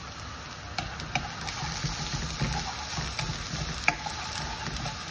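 Chopped onion and garlic sizzling in oil in a nonstick pan, stirred with a wooden spatula that knocks against the pan a few times.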